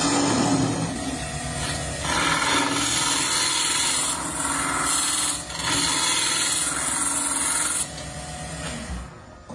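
A tool abrading or cutting wood, a steady rasping noise in long passes that change or break off about 2, 5½ and 8 seconds in, quieter near the end.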